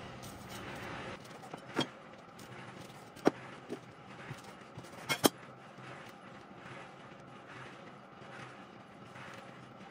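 Knife slicing a rolled pastry log on a parchment-lined baking tray: a few sharp taps of the blade and pieces against the tray, the loudest about three and five seconds in.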